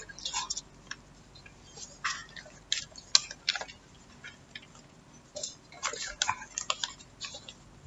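Paper banknotes being handled, giving scattered short crinkles and ticks at irregular intervals.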